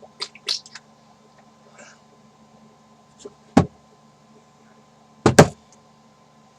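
Sharp knocks of hard objects: a few light clicks early in the first second, one loud knock about three and a half seconds in, and a loud double knock near the end.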